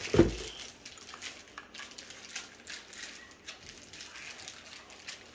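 A paper towel being handled and crumpled, with faint scattered crinkling and rustling. There is one brief, louder low thud right at the start.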